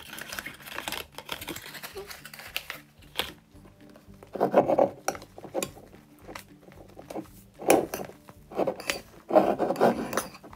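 A metal spoon stirs and scrapes thick fluffy slime made from shaving cream and glue in a ceramic bowl. It gives sharp clinks against the bowl and several short, louder scraping and squishing strokes. The slime is firming up and starting to pull away from the bowl.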